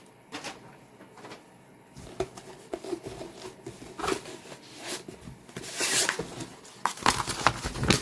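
Rustling and crinkling of kit packaging being handled, with scattered small clicks and taps, busier and louder in the second half.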